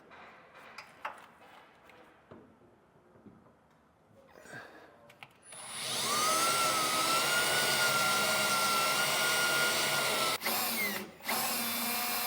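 Power drill with a small 1/8-inch bit drilling a pilot hole up through the pickup truck bed from underneath. It starts suddenly about halfway in and runs steadily with a steady whine, briefly stopping twice near the end before running again.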